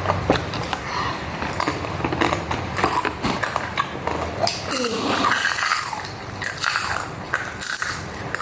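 Close-up biting and chewing of crunchy food: a run of sharp crunches and mouth sounds.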